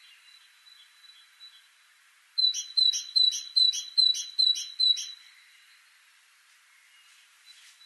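Great tit singing: one phrase of seven quick, evenly repeated high notes, about two and a half a second, starting about two seconds in and lasting about three seconds. Faint chirps can be heard before it.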